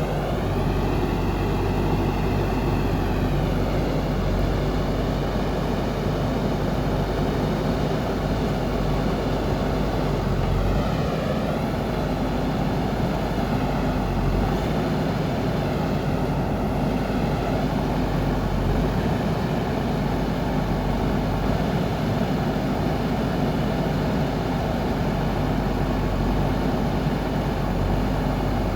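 JCB backhoe loader's diesel engine running steadily under load, with a higher whine that rises and falls three times as it works.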